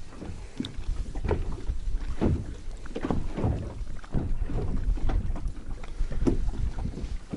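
Choppy water slapping irregularly against the side tube of an inflatable boat, about once a second.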